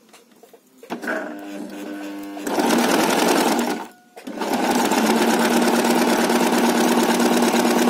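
Domestic sewing machine stitching a zigzag through fabric with a side-cutter overlock foot, which trims the edge as it sews. About a second in it starts slowly with a steady hum, then runs fast. It stops briefly about four seconds in, then runs steadily again.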